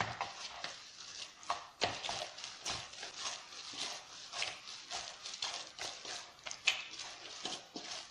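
Hands kneading oiled pizza dough in a bowl, a steady run of soft squishing strokes two or three a second, as the oil is worked into the dough and it turns soft.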